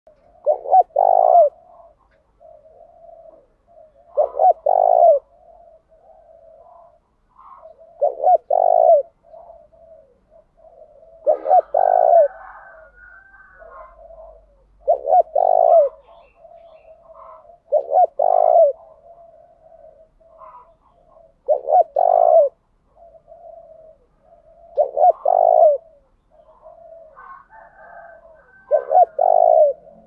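Spotted dove singing its cooing song: a loud phrase of two or three low coos repeated about every three and a half seconds, with softer coos between the phrases.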